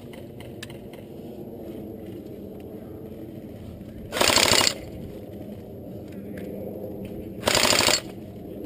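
Airsoft electric rifle firing two short full-auto bursts, each about half a second of rapid rattling shots, the first a little past the middle and the second near the end.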